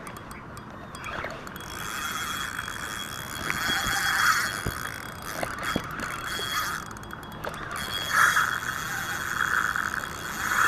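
Spinning reel under heavy load from a hooked carp: its drag ratchets as the fish pulls line off, in uneven surges, while the handle is cranked.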